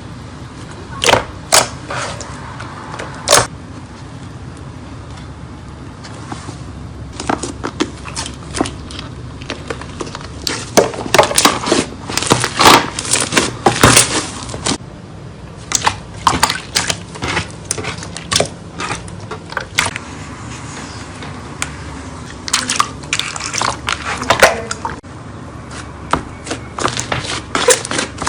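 Slime being handled by hand: irregular wet clicks and crackling pops, coming thickly in a couple of bursts, over a steady low background noise.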